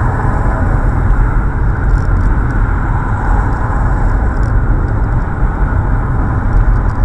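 Steady road and engine noise of a car driving, heard from inside the cabin: an even low rumble that holds without change.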